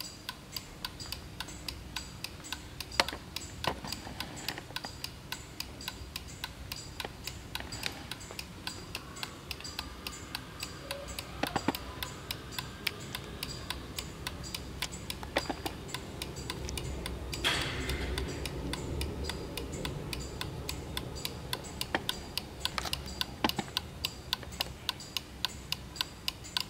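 Vintage miniature Black Forest wall clock, weight-driven, ticking fast and evenly as its swinging-girl pendulum swings, with a few louder clicks standing out.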